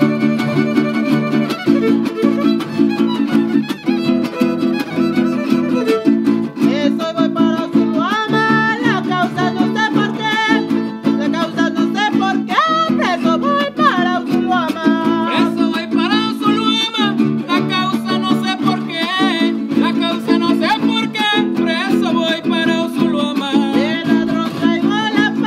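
Son huasteco (huapango) played by a Huastec trio: violin carrying a sliding, ornamented melody over the steady rhythmic strumming of jarana huasteca and huapanguera.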